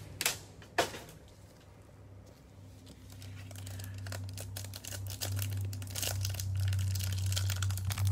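Cellophane wrapper on a stack of trading cards crinkling and tearing as gloved hands handle it and peel it open. A few sharp crackles come in the first second, then the crinkling grows busier and denser from a few seconds in.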